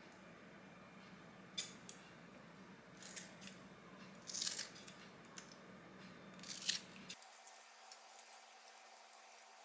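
Kitchen scissors snipping through pieces of napa cabbage kimchi: about four short, crisp cuts a second or two apart, faint against a low room hum.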